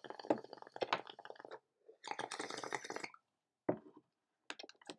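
Water bubbling in a bong as smoke is drawn through it: two long gurgling pulls, then a few short gurgles near the end.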